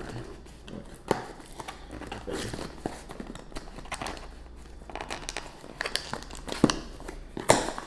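Hands handling a small cardboard shipping box and picking at its packing tape: scratchy rustling and crinkling, with a few sharp knocks, the loudest just before the end.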